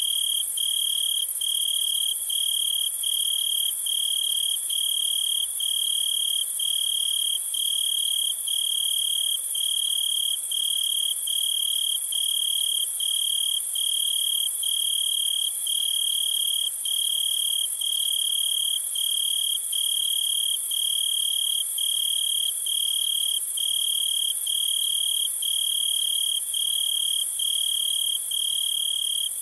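Crickets chirping in a steady, regular rhythm, about three high chirps every two seconds, over a constant high-pitched insect hiss.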